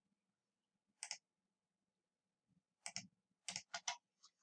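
Computer mouse clicks: a single click about a second in, then a quick run of about five clicks from about three seconds in.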